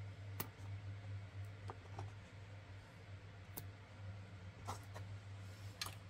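Small scissors snipping off cotton crochet-thread ends, heard as a handful of sharp clicks spread a second or more apart, with a quicker cluster near the end. A low steady hum sits underneath.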